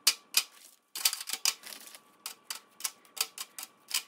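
Golden Oreo cookies being set down one by one on a disposable aluminium foil pan: irregular sharp clicks and taps of cookie on foil, about two or three a second, with a short rustle of the foil a second or so in.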